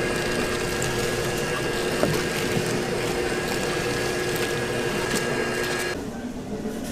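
Hotteok-making machine running with a steady mechanical hum and light clicks; about six seconds in the sound drops suddenly to a quieter background.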